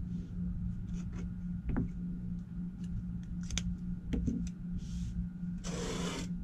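Cotton fabric strips and a pen being handled on a cutting mat, with light rustles and small taps over a steady low hum. Near the end comes a brief, louder rattling scrape as a metal tin of pins is grabbed and pulled across the mat.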